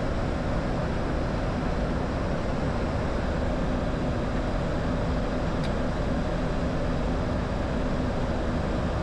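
Steady in-flight flight-deck noise of a Boeing 737-800 in descent: a constant rush with a low steady hum.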